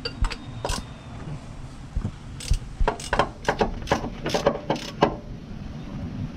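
Ratchet wrench clicking while the engine's crankshaft is turned over by hand to move the pistons, a quick uneven run of sharp clicks from about two to five seconds in.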